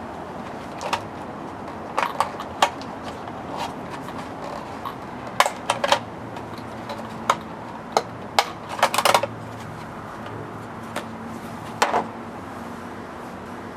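Irregular sharp clicks and light knocks of small hard parts being handled on a work surface, clustered in quick runs around the middle. Heard over a steady low background hum.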